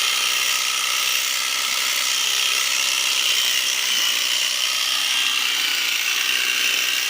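Electric sheep-shearing clipper running steadily, a continuous high buzz of the motor and cutter.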